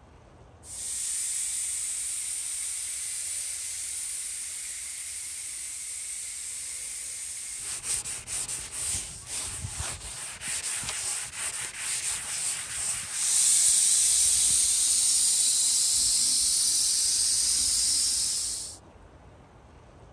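Paint spray gun hissing as it sprays: a steady spray, then a run of short trigger spurts, then a louder steady spray that cuts off suddenly.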